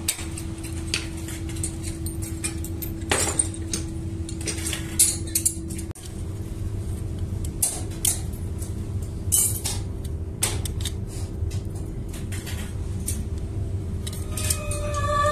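Cast aluminium clothes hooks clinking and knocking as they are handled and worked with a metal blade: irregular sharp metallic clicks over a steady low hum.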